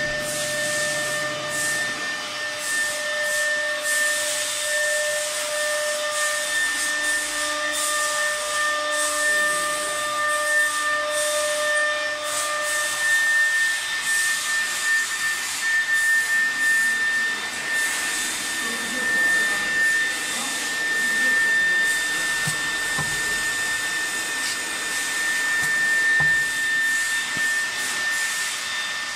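Mini CNC router's spindle motor running with a steady high whine over a hiss as the bit cuts into a wooden block; a lower hum in the mix drops out about halfway through.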